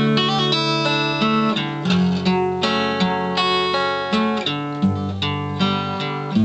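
Steel-string acoustic guitar played solo, plucked and strummed chords with a moving bass line and no singing.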